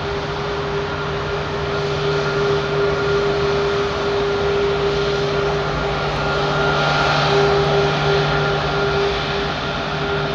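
Four Rolls-Royce Trent 500 turbofans of an Airbus A340-600 on the ground after landing: a steady jet roar with a steady whine, growing slightly louder about seven seconds in.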